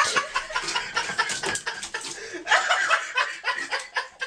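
A person laughing in short, repeated chuckles.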